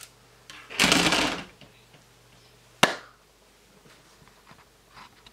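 Plastic miniature parts being handled on a cutting mat: a brief scraping rustle about a second in, then a single sharp click a little before three seconds, with a few faint ticks near the end.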